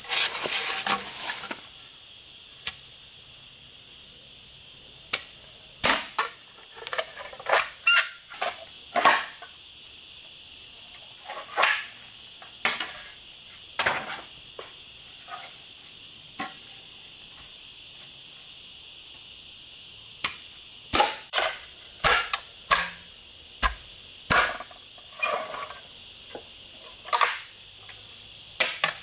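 Irregular sharp knocks and cracks, a couple of dozen of them at uneven intervals, over a steady high-pitched drone of rainforest insects.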